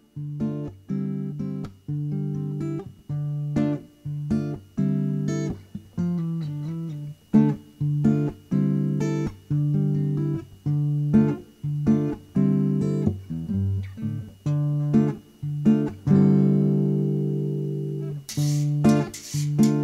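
Background music: an acoustic guitar playing single plucked notes, one or two a second, each ringing out and fading, with a long held chord and a few brighter strums near the end.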